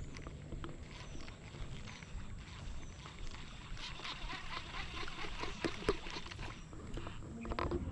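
Baitcasting reel being wound in during a lure retrieve: a quick run of faint clicks, busiest around the middle.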